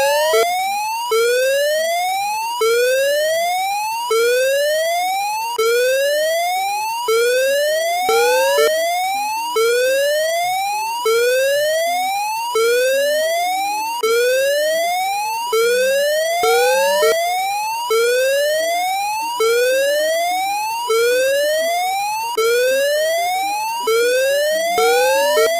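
Emergency alert alarm tone: a whooping tone that sweeps upward in pitch for about a second and a half, drops back abruptly and starts again, repeating over and over.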